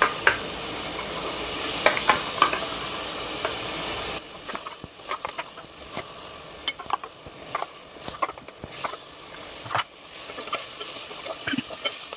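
Onion-tomato masala sizzling in a pan while a steel slotted spoon scrapes and taps against it in quick clicks. The loud sizzle drops off abruptly about four seconds in, leaving a quieter sizzle under the spoon's scrapes and taps.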